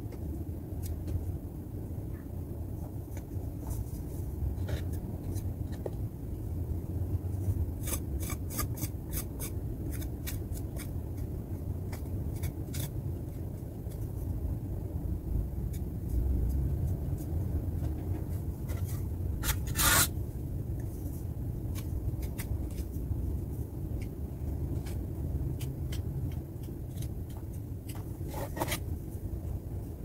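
A small hand tool scraping and rubbing along a cracked plaster wall, in scattered scratchy strokes and clicks. They come thick and fast about a third of the way in, with a louder scrape about two-thirds in. A steady low rumble runs underneath.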